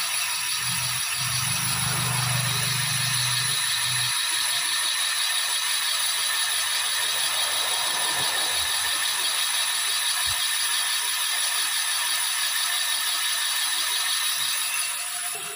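Cylinder boring machine running, its boring bar cutting out the bore of a motorcycle cylinder block during a rebore. A steady whirring, hissing machine sound that dies away near the end.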